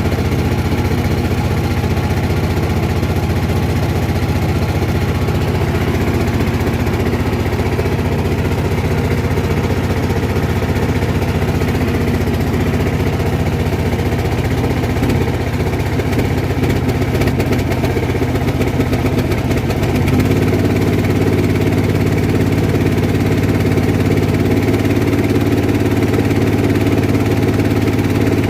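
Small boat engine running steadily under way, its note stepping up to a higher, louder speed about twenty seconds in.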